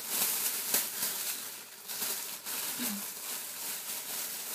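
Thin clear plastic bag crinkling and rustling as it is handled and pulled open by hand.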